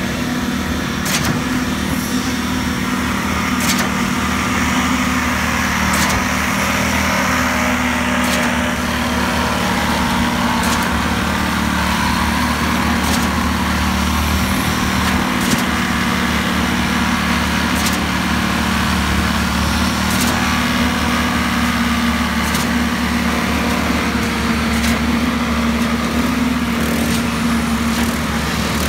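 Concrete-pouring machinery running steadily, the engine of a concrete boom pump and the poker vibrators of the slab pour, a continuous engine drone with short sharp clicks about every two seconds.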